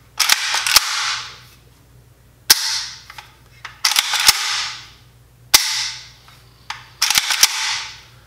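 The action of a Norinco Type 56S-2 AK-pattern rifle being worked by hand: about five rounds of sharp metallic clacks, roughly every one and a half seconds, each followed by a short fading metallic ring.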